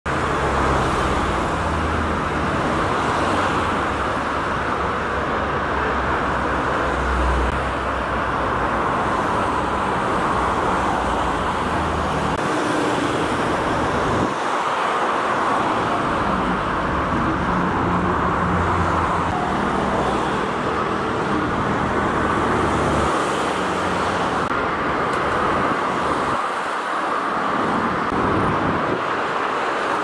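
Steady motor vehicle engine noise with a continuous hiss over it and a low rumble that rises and falls.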